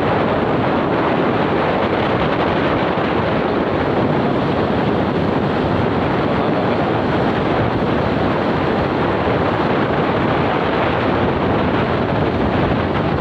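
Wind buffeting the microphone: a loud, steady rushing noise with no break.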